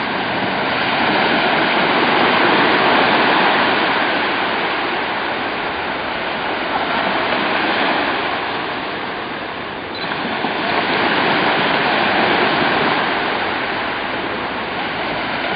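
Waves washing onto a beach: a steady rushing that swells and eases every few seconds.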